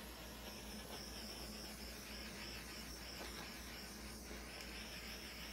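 Small handheld torch flame hissing faintly and steadily as it is passed over wet acrylic paint to bring up cells and pop air bubbles.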